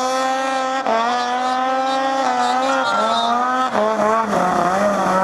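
Snowmobile engine held at high, steady revs while the sled skims across open water, the pitch dipping briefly a few times as the throttle eases.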